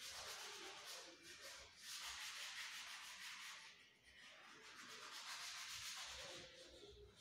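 Chalk rubbing on a chalkboard in many quick, repeated strokes as an area of the map is shaded in. The strokes come in two long spells with a brief break about four seconds in.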